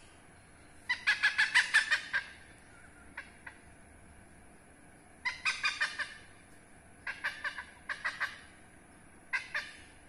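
Hornbill calling in loud bursts of rapid repeated notes: a long run of about ten notes about a second in, then two single notes and several shorter runs, the last near the end.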